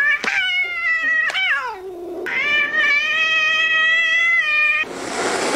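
A white cat yowling in two long drawn-out cries, the first rising and then falling in pitch, the second held steady, followed by a short hissing noise near the end.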